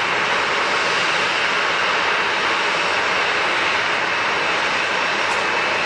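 Jet airliner engines running, a steady rushing noise with no change in level.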